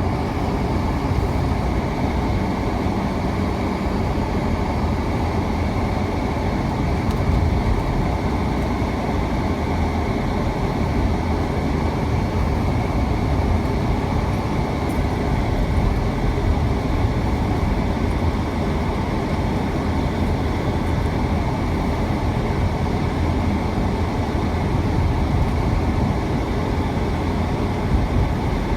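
Steady low rumble of a vehicle driving, road noise without a break.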